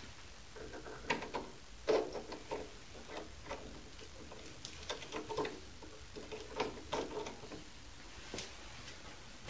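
Irregular light metal clinks and knocks as a small metal block is handled and set against a mini lathe's tool post, loudest about two seconds in.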